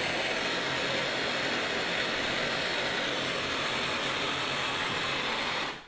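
Hand-held MAPP gas torch burning with a steady hiss, shut off near the end so that the hiss cuts out suddenly.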